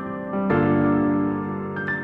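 Background keyboard music with sustained chords, a new chord sounding about half a second in.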